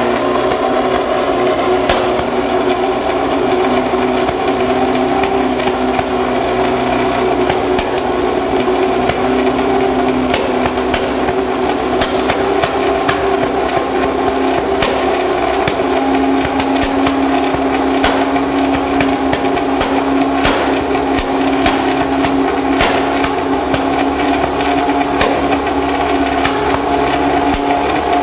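Ford Cosworth DFV 3.0-litre V8 of a historic Formula One car idling steadily at a fast idle, with scattered sharp crackles; the idle lifts slightly about halfway through.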